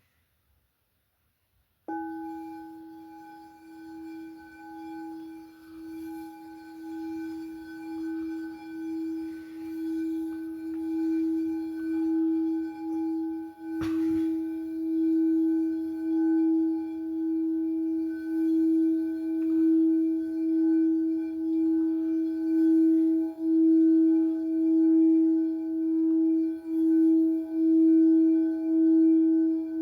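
A singing bowl sounds a single sustained tone with higher overtones. It is struck about two seconds in and then kept ringing around the rim, swelling gradually louder with a slow pulsing wobble. Near the middle comes a sharp click of the mallet against the bowl.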